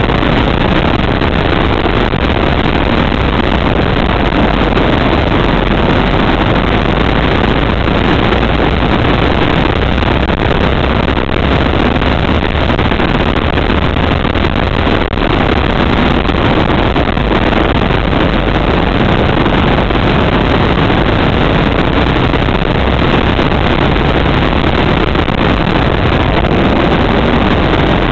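Go-kart engine running steadily at speed, heard onboard the kart, loud and unbroken.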